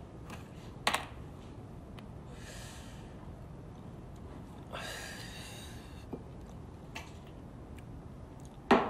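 A man breathing out cigarette smoke in two long exhales, about two and a half and five seconds in, over quiet room tone. A few faint clicks, and a sharp click near the end.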